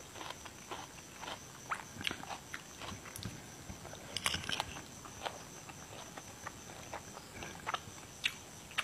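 Close-miked chewing of crisp raw vegetables: irregular small crunches and wet mouth clicks.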